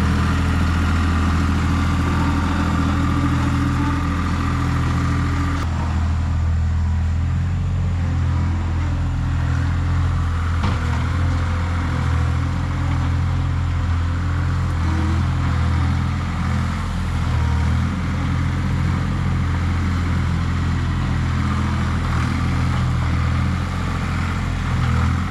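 Skid steer engine running steadily under work while grading dirt; a higher-pitched tone in the mix drops out about six seconds in.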